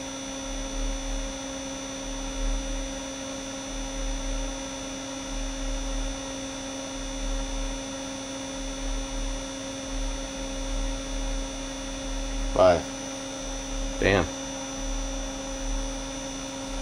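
Steady electrical hum from a car-audio amplifier rig under test, with a low throb pulsing under it about every second and a half. Two short voice-like sounds stand out near the end.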